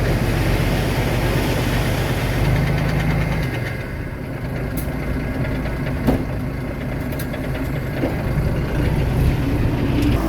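Diesel engine of heavy earthmoving machinery running steadily; its low note changes about a third of the way in. A single sharp knock sounds about six seconds in.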